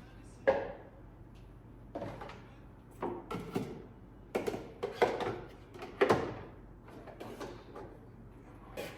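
Kitchen cupboard doors and drawers being opened and shut: a string of about six knocks and clunks spread over several seconds, some in quick clusters.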